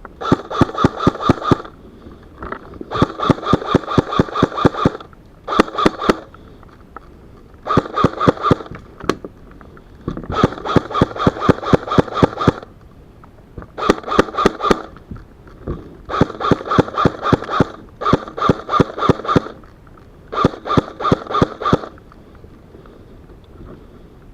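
Airsoft gun firing on full auto in nine bursts of one to two seconds each, a rapid even rattle of shots.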